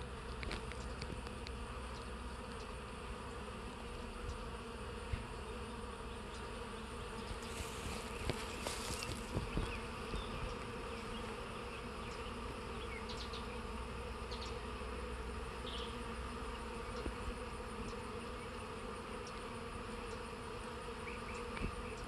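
Honeybees buzzing steadily at a hive entrance as many bees fly in and out.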